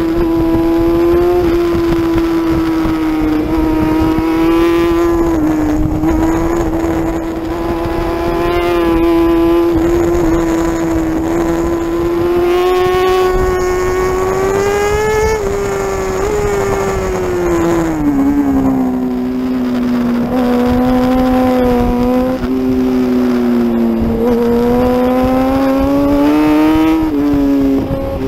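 Racing superbike engine at high revs, heard onboard: a steady high drone held around 10,000–11,000 rpm in third gear. A little past halfway the pitch drops as the revs fall for braking and a downshift, then climbs again near the end.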